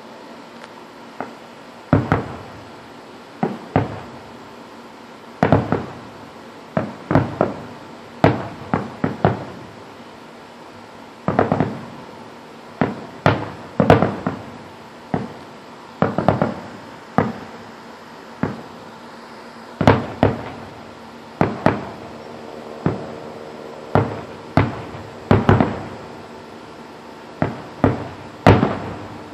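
Aerial fireworks bursting in an irregular string of sharp bangs, often several in quick succession, each trailing off in an echo.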